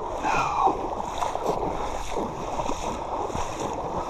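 Water sloshing and splashing at the river's edge, with scattered light knocks and clicks, as a hooked salmon is brought in close to the bank.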